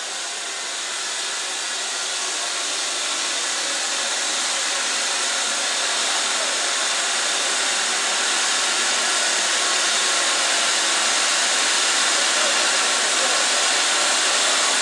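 Steady steam hiss from BR Standard Class 7 'Britannia' 4-6-2 locomotive 70013 Oliver Cromwell as it drifts slowly into the platform, growing gradually louder as it draws near.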